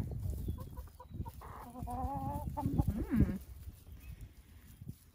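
Backyard chickens clucking while they peck at scattered feed. One chicken gives a drawn-out call about two seconds in, followed by a second wavering call, with low thumps and rustling underneath. The flock goes quieter after about three and a half seconds.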